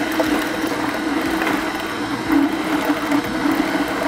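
Nama J2 cold-press juicer running: a steady motor hum as its auger slowly presses cucumbers and cabbage.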